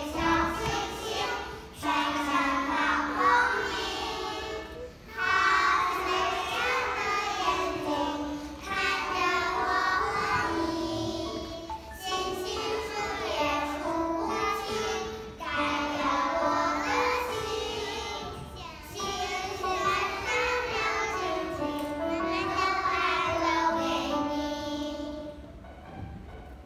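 A group of young children singing together in unison, in short phrases with brief breaks between them; the singing stops near the end.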